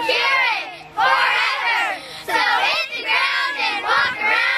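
A group of young girls shouting a cheer together in several loud bursts, many high voices overlapping.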